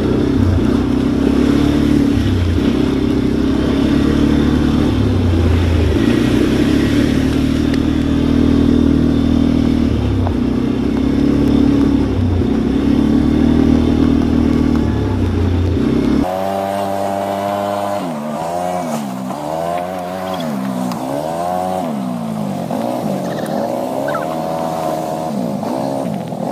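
ATV engine running under way on a dirt trail, steady and loud with a heavy low rumble. After about sixteen seconds the rumble drops away and the engine pitch rises and falls as the throttle is eased on and off.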